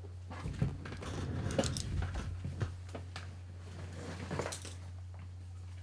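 Scattered soft knocks and rustling of a camera backpack and gear being reached for and handled, over a steady low hum.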